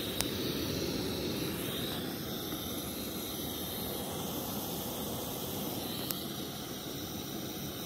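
Coleman Peak1 backpacking canister stove burning under a small pot of water, a steady gas hiss, with two faint ticks.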